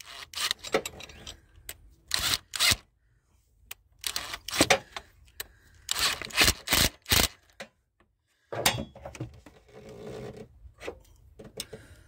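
Metal hand tools, a wrench and a screwdriver, clinking and scraping against a Chevy Vortec cylinder head's valve spring and rocker while prying at the valve keepers. The sounds come as irregular sharp clicks and knocks, in clusters about 2 seconds in and again about 6 seconds in.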